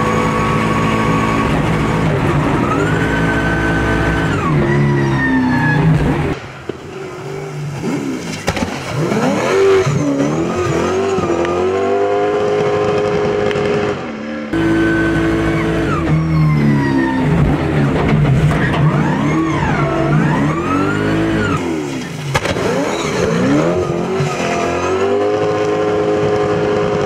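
Drift car's engine revving hard up and down as it slides sideways on a wet track, with some tyre squeal. The revs rise and fall over and over, now and then held high for a second or two.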